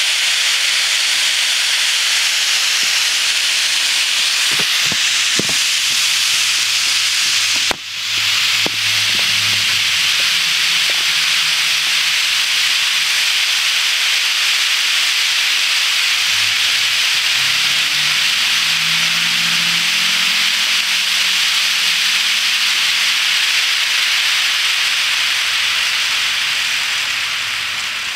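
Long HO scale freight train running fast around a spiral of model track: a steady, loud high hiss of many small metal wheels rolling on the rails. It briefly dips about eight seconds in and eases slightly near the end.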